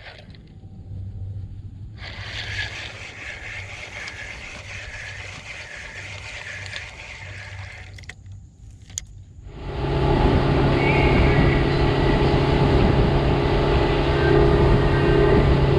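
A rushing, water-like hiss for several seconds, then a motor running loudly and steadily from about ten seconds in.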